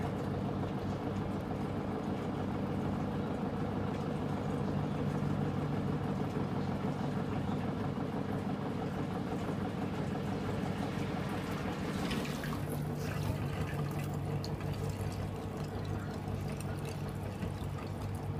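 Samsung top-load washing machine spinning its drum, the motor humming steadily, while its drain hose gushes water into a stainless steel sink. More splashing hiss joins about two-thirds of the way through.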